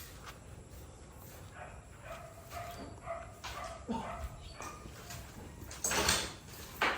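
Animal calls: a few faint short cries, then two louder short harsh bursts near the end.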